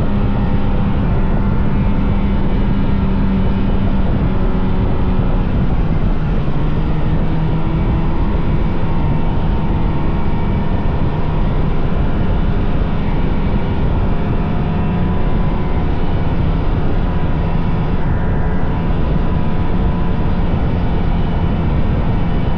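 Vintage snowmobile's two-stroke engine running steadily at trail speed, its pitch drifting slightly up and down, over a rushing noise.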